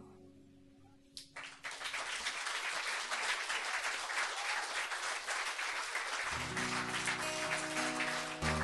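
A small audience applauding, starting about a second in as the last acoustic guitar chord dies away. Past the middle, an acoustic guitar starts picking sustained notes under the clapping.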